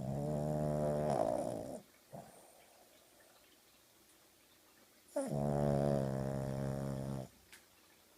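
Sleeping dog snoring: two long snores about five seconds apart, each lasting about two seconds.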